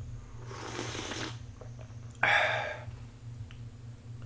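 A man slurping cold mulhoe broth and raw fish off a spoon. There are two short slurps, the first about half a second in and the second, louder one just past two seconds in, over a steady low hum.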